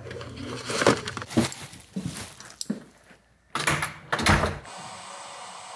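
Handling knocks and clatter, then after a brief drop to near quiet, louder thuds of a door in a small room, settling into a steady faint hum.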